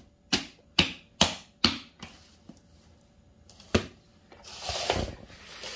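Bare hands slapping a lump of mashed boiled soybeans to pack it into a meju block: four sharp slaps about half a second apart, then one more a couple of seconds later. Near the end comes a rustling scrape as hands gather crumbly soybean mash in a plastic bowl.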